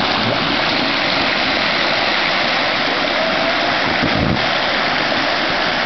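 Steady rush of river water pouring over rocks through a small rapid, with a brief low bump about four seconds in.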